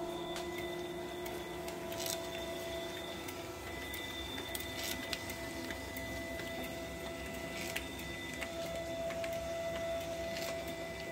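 Prototype insert-curing machine running: electric motors whine steadily as belts and rollers turn. A sharp click comes about every three seconds, four times in all, as the mechanism indexes the inserts.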